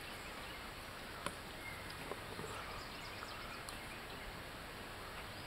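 Quiet outdoor ambience: a steady faint hiss with a few faint ticks and short faint high chirps.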